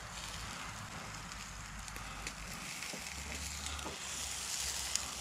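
Steaks sizzling on the grate of a small charcoal grill, a steady faint hiss, with a few light clicks as the meat is turned with tongs.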